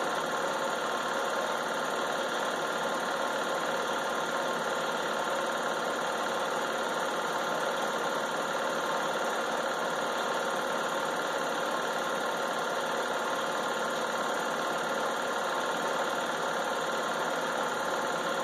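Home-movie film projector running steadily: a continuous mechanical running noise with a steady hum, unchanging throughout.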